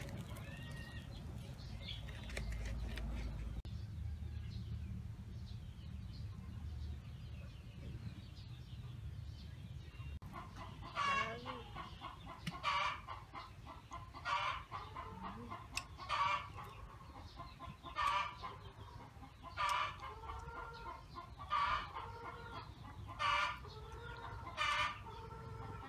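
A chicken clucking, starting about ten seconds in and repeating a loud call roughly every second and a half to two seconds.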